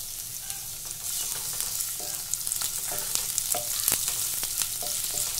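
Freshly added sliced onions sizzling in hot oil in a kadai, stirred with a wooden spatula that scrapes and taps against the pan. The sizzle grows a little louder about a second in, with sharp clicks of the spatula on the pan throughout.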